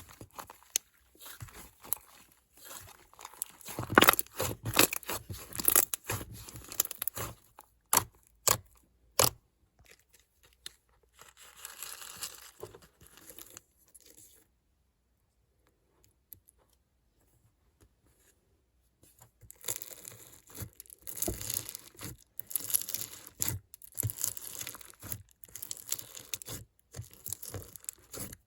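Slime being worked by hand, giving sticky crackles, pops and tearing sounds in quick irregular runs, with sharp snaps in the first few seconds. It goes quiet for about five seconds midway, then the crackling starts again.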